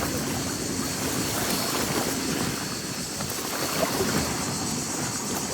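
Sea waves washing steadily on the shore, with wind on the microphone.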